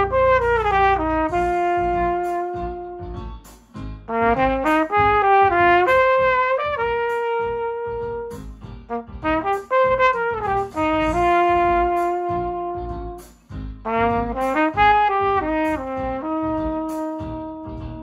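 Flugelhorn playing a slow melody in three phrases, each made of quick runs of notes and long held notes, with short breaths between the phrases.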